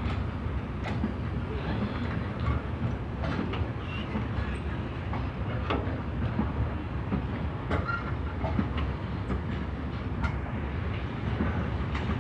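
A freight train's covered hopper wagons rolling steadily past: a continuous low rumble with scattered clacks of the wheels over the rail joints.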